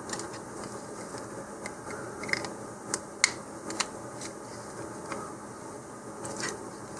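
Plastic fins of an Estes Ghost Chaser snap-together model rocket being pushed into the slots of the plastic fin can: light rubbing of plastic on plastic with a handful of sharp, scattered clicks.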